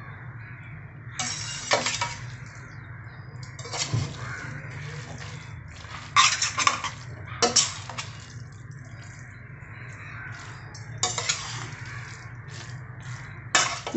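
A cooking utensil scraping and knocking against a pan as noodles are tossed and mixed. The scrapes and clinks come irregularly, a few every couple of seconds, over a low steady hum.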